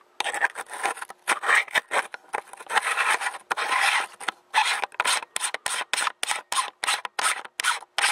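Cheap screw-on wide-angle lens being threaded onto a camera's lens, heard close to the microphone as a series of rasping, grinding strokes of the threads turning. The strokes are longer at first and become shorter and quicker, about three a second, near the end.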